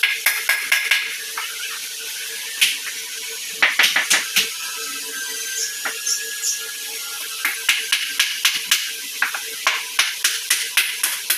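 Runs of sharp, quick clicks or taps, several a second, coming in clusters with short gaps, over a faint steady hum.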